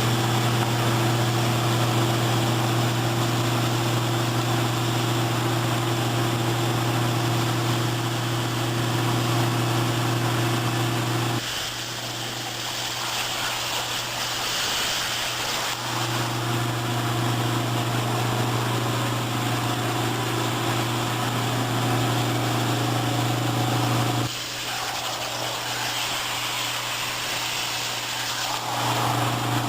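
CNC plasma torch cutting metal, a steady loud buzzing hum over a hiss of air. The arc cuts out twice for a few seconds, about 11 and 24 seconds in, leaving only the hiss of air, then the hum starts again.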